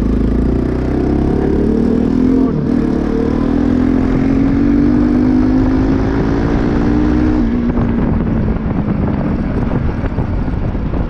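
Modified Bajaj Pulsar NS200's single-cylinder engine running under way, its pitch climbing steadily as the bike gains speed, then dropping about seven seconds in as the throttle is eased.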